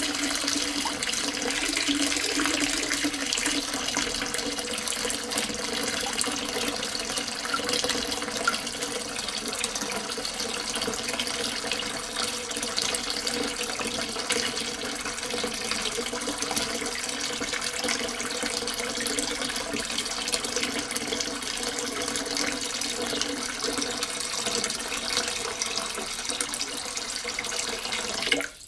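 Water pouring steadily into a half-full sink, a continuous rushing splash into standing water.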